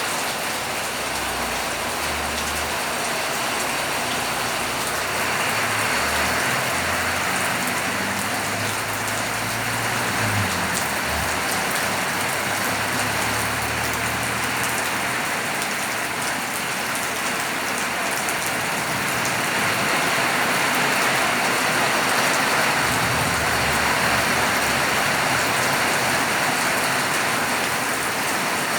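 Rain falling steadily, a little louder from about five seconds in.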